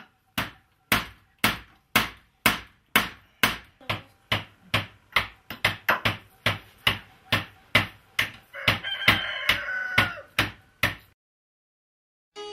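Repeated hand blows of a small hatchet or hammer striking a block, about two a second, quickening after the middle. A rooster crows over the blows a little before the end, then the sound cuts off.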